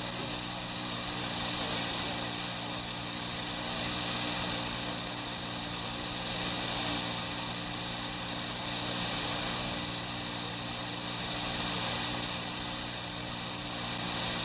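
Steady electrical hum and hiss of an old police dispatch tape recording, with no clear voice on the channel.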